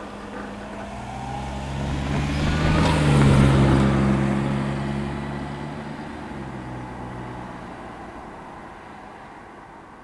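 A car drives past. Its engine and tyres grow louder to a peak about three seconds in, the engine note drops in pitch as it passes, and the sound then fades away.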